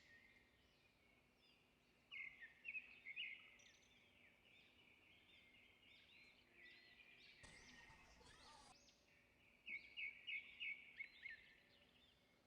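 Faint bird chirping: two runs of quick, high chirps, one about two seconds in and another near the end, with scattered softer chirps between them.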